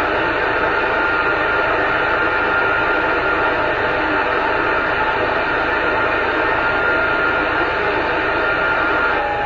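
Radio receiver hiss on an open channel between transmissions: a steady rush of static, with a faint steady whistle under it for most of the stretch.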